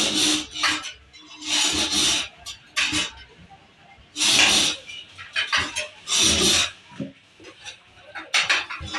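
Rubber straps being forced through the holes of hawai slipper soles on a manual strap-fitting post, making a series of short rubbing squeaks, roughly one every second.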